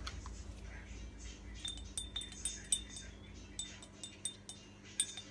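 Scattered light clinks and ticks of a paintbrush against a glass jar of wash water, several with the same short ringing note, over a faint steady hum.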